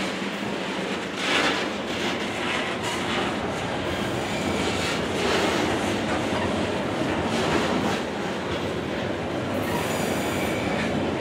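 Freight train cars, boxcars and covered hoppers, rolling past at speed, with a steady rumble and scattered clunks of steel wheels over the rail joints. There is a brief high-pitched squeal near the end.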